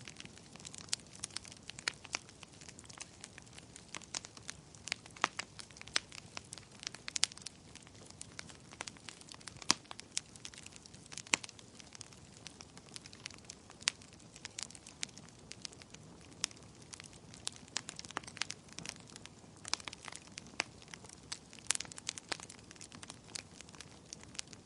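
Fire crackling: irregular sharp pops and snaps, some much louder than others, over a faint steady hiss.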